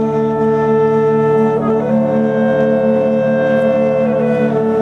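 Live music from a wind band joined by traditional southern Italian folk instruments. A reedy melody moves in held notes, changing pitch about two seconds in and again near the end, over steady low sustained notes.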